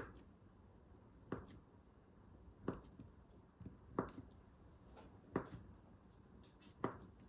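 Knife cutting food on a cutting board: six slow, evenly spaced cuts, about one every second and a half, each a sharp knock on the board.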